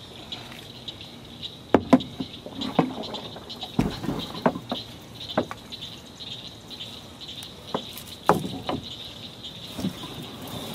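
A steady, high-pitched insect chorus, with irregular knocks and splashes from a canoe paddle striking the hull and dipping in the water as the canoe is turned. The knocks are the loudest sounds, about two seconds in and again about eight seconds in.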